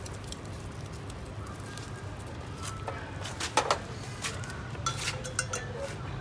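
Wooden chopsticks clinking and scraping against a stainless steel cooking pot, a few scattered knocks with the loudest about three and a half seconds in, over a steady low background hum.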